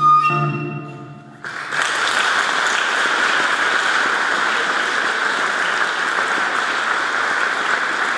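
The last chord of flute, harpsichord and guitar dies away, and about a second and a half in audience applause starts and continues steadily.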